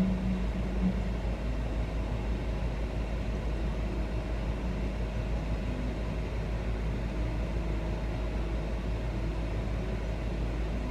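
A steady low background rumble, with a brief low hum in the first second.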